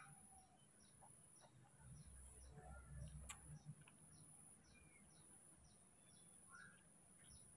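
Near silence: faint room tone with a steady high-pitched whine and a faint short chirp repeating about twice a second, and one faint click about three seconds in.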